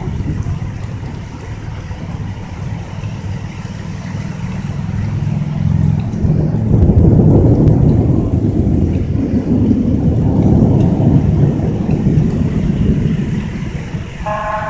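Rain and wind noise on a phone microphone, swelling into a heavier low rumble for several seconds in the middle. A vehicle horn starts a steady note near the end.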